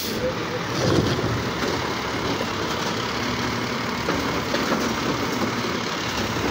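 Automated side-loader garbage truck's engine running steadily while its hydraulic arm lifts a wheeled trash cart up to the hopper, with a faint steady whine in the second half.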